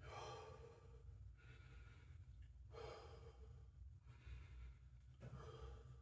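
A man breathing hard, about five slow, deep breaths in and out, catching his breath after jumping rope.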